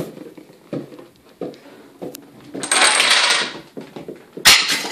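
Small balls, dominoes and wooden pieces of a homemade Rube Goldberg machine knocking and clattering in scattered hits, then a rattle lasting about a second halfway through. Near the end comes a sharp, loud snap, the machine's mousetrap going off to flip the light switch.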